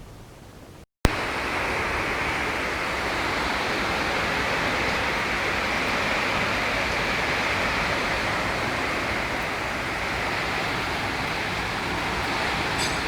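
A loud, steady hissing rush with no distinct tones that starts abruptly after a brief dropout about a second in.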